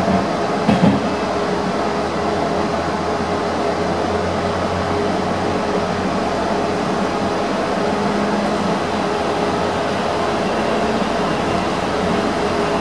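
AnsaldoBreda driverless metro train running on its track, heard from inside the front car: a steady rumble of wheels on rail under a constant motor hum. A short thump comes about a second in.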